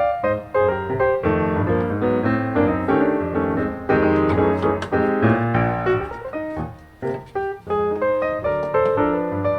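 Background piano music playing at a lively pace: chords and a melody of struck notes.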